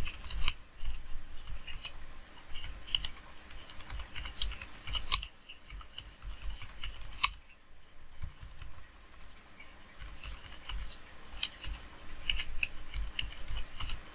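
Typing on a computer keyboard: irregular runs of keystrokes, with a short pause about five seconds in.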